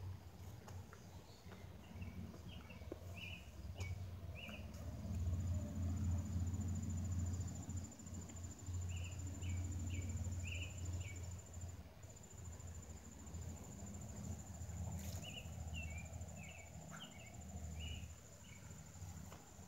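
Outdoor insect sounds: a steady high-pitched trill sets in a few seconds in, and groups of four or five quick chirps come three times, all over a low rumble.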